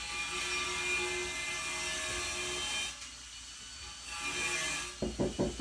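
A power tool running with a steady whine, stopping about three seconds in and starting again briefly; near the end it gives way to a rapid series of knocks, several a second.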